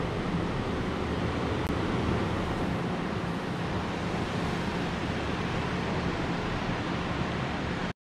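Ocean surf breaking on the beach, mixed with wind buffeting the microphone: a steady, even roar that cuts off abruptly at the end.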